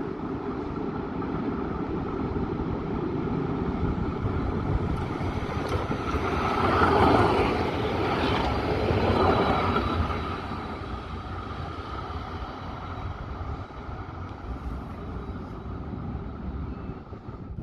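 Tram passing by, getting louder to a peak about seven to nine seconds in, then fading.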